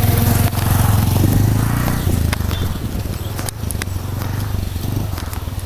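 Bajaj Pulsar 150's single-cylinder engine running, its hum fading as the bike eases off, with scattered sharp clicks over it.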